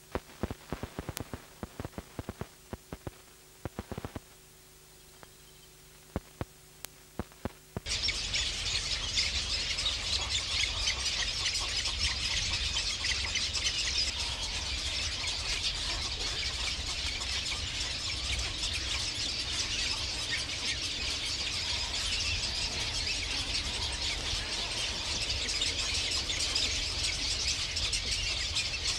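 For about the first eight seconds, only faint tape hiss and hum with scattered crackles; then, suddenly, a dense chorus of many birds chirping and calling sets in over a low rumble and carries on.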